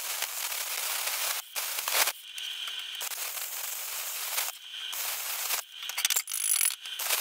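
Handheld plasma cutter cutting through steel plate: a loud hissing crackle that breaks off briefly several times and comes in short stretches near the end.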